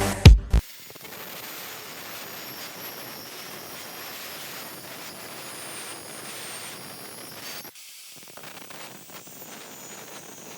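Music cuts off just after the start, leaving a faint, steady hiss of background noise that drops out briefly near the end.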